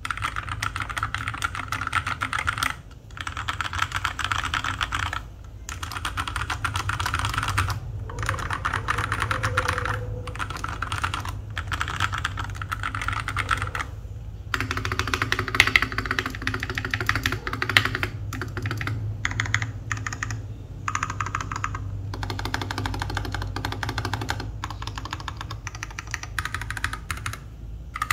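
FL680 mechanical keyboard with Tecsee Purple Panda tactile switches and NJ80 keycaps, its case lined with foam, being typed on rapidly in runs of a few seconds broken by brief pauses. A steady low hum sits underneath.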